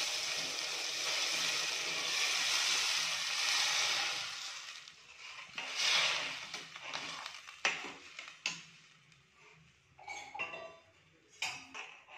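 Hot water poured into a steel pressure cooker onto sautéed onions and vegetables, hissing for the first four seconds or so, with another short hiss about six seconds in. After that, a slotted steel spatula stirs the pot, with scattered clinks and scrapes against the metal.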